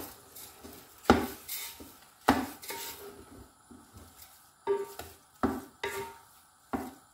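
Wooden spatula scraping and knocking against a metal pot while stirring grated pumpkin and sugar, in about eight irregular strokes. The pot rings briefly after some of them.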